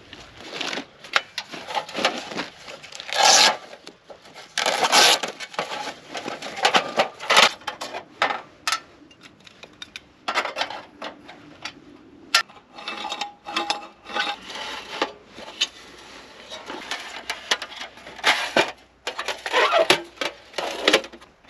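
Titanium Pomoly T1 fast-fold wood stove being unfolded and assembled by hand: irregular scraping, rubbing and clicking of its thin metal panels, with one sharp click about twelve seconds in.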